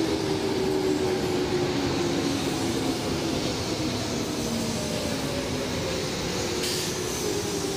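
Keikyu red electric train running past a station platform: wheels on rail and running gear, with a motor whine that slowly falls in pitch as it goes.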